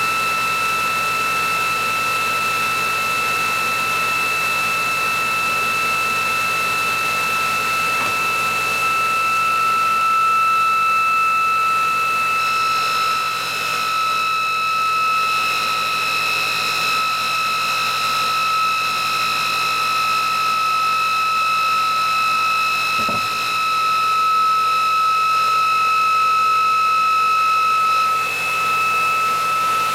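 ReGenX generator prototype and its electric drive motor spinning at several thousand RPM: a steady high-pitched whine. A second, higher whine joins about halfway through and drops away shortly before the end.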